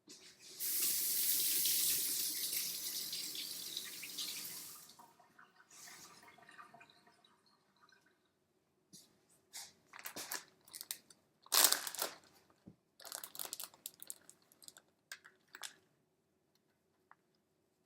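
A rush of running water, like a kitchen tap, lasting about four seconds and fading out, then a run of short crunches and rustles as taco shells and fillings are handled.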